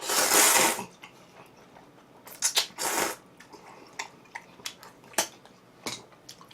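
Loud slurping of udon noodles and broth, first for under a second at the start and again a couple of seconds later, with chewing and small clicks between.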